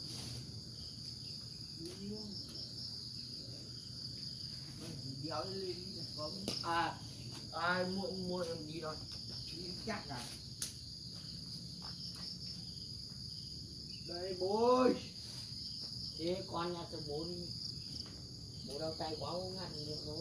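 A steady, high insect trill, like crickets chirping, runs throughout, with people's voices talking briefly a few times over it, loudest about two-thirds of the way in.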